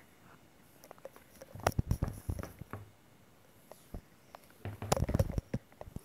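Plastic toy pony figures tapped and knocked on a hard tiled floor as they are moved about. Two bursts of quick clattering taps, about two seconds in and again about five seconds in.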